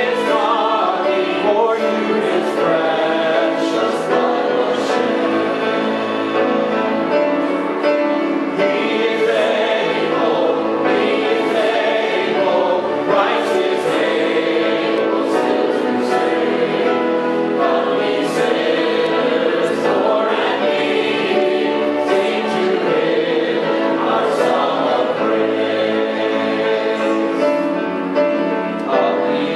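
Mixed church choir of men's and women's voices singing together, with instrumental accompaniment.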